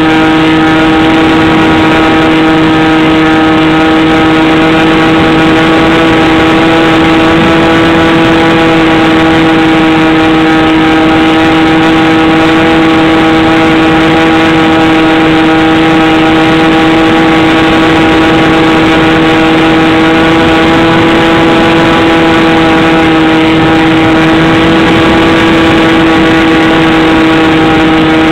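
Motor and propeller of a radio-controlled model airplane running at steady cruise throttle, a loud, even drone that holds one pitch, with air rushing past the onboard camera's microphone.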